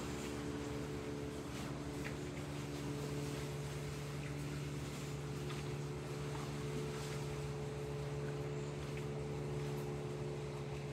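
A motor running steadily, its hum holding several unchanging pitches, with a few faint clicks scattered through.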